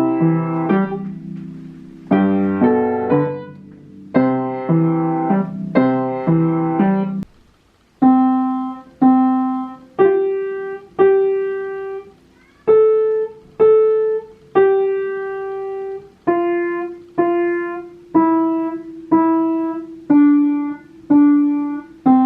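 Piano music: chords for about the first seven seconds, then after a short pause a slow melody of single notes, each struck and left to ring out, about one a second.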